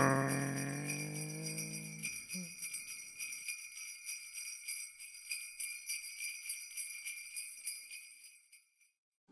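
Jingle bells shaking in a steady rhythm, fading out and stopping near the end. Over the first two seconds a low held tone dies away underneath.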